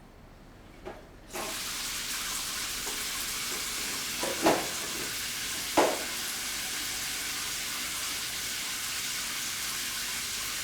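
Overhead rainfall shower head switched on, its water coming down in a steady hiss that starts about a second and a half in. Two short knocks come a few seconds after it starts.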